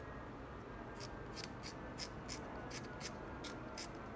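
Short, crisp scrapes of a hobby knife blade shaving the edges of a two-speed clutch shoe, about three strokes a second after a brief pause at the start. The knife is radiusing and deburring the shoe so that it won't touch the two-speed housing.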